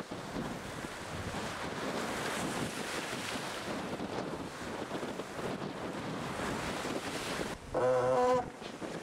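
Wind and rushing sea water on board a fast-sailing IMOCA 60 ocean-racing yacht, with waves breaking along the hull and wind buffeting the microphone. Near the end comes a brief, loud pitched sound lasting under a second.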